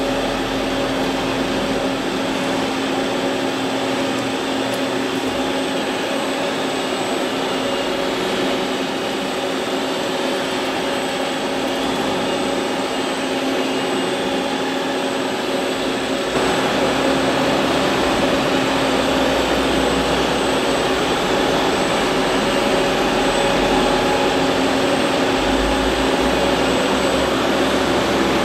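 Goodway GS Series CNC lathe running while it machines a steel crankshaft: a steady mechanical whir with a constant hum and a thin high whine. It gets louder about halfway through, with a low rumble added.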